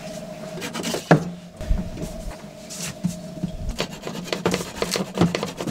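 Flush-cut saw rasping back and forth across wood, cutting protruding wooden screw-hole plugs flush with a plywood floor, in a run of short quick strokes that come thickest in the second half.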